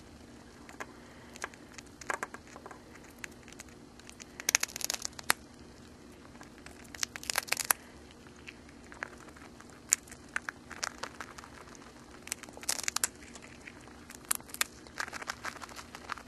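A hamster gnawing and crunching a Cheez-It cracker right at the microphone: sharp clicks and short bursts of crisp crunching every few seconds, with quieter pauses between.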